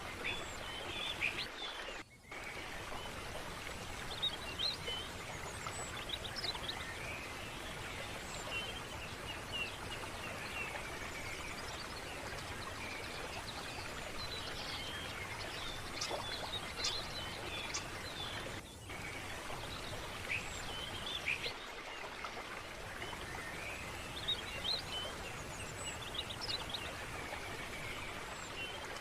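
Steady rush of a flowing stream, with small birds chirping and calling on and off over it. The sound briefly drops out twice, once about two seconds in and once near the two-thirds mark.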